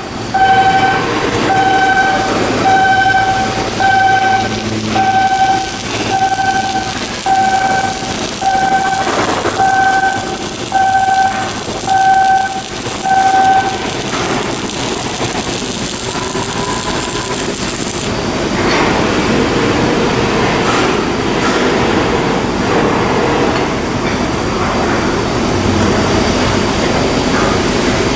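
An electronic warning beeper sounds a single-pitched beep about once a second, then stops about halfway through. Steady industrial work noise with scattered knocks continues after it.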